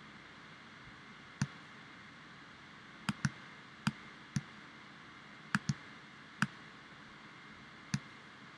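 Computer mouse button clicking as diagram boxes are selected and dragged: about nine short, sharp clicks spaced irregularly, two of them in quick pairs, over a faint steady hiss.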